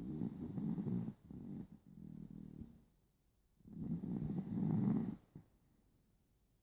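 Small dog snoring loudly: a long snore already under way, a softer breath after it, then a second long snore about four seconds in.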